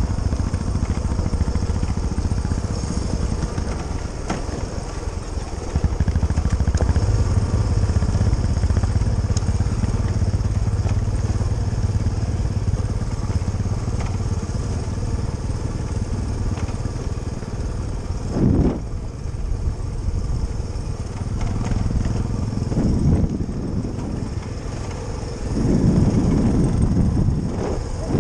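Suzuki DR350SE's single-cylinder four-stroke engine running while the bike rides a rough gravel track, getting louder about six seconds in.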